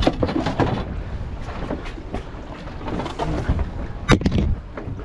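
Wind buffeting the microphone over a small boat on open water, with low rumbling and a run of short knocks and slaps, the loudest a little past four seconds in.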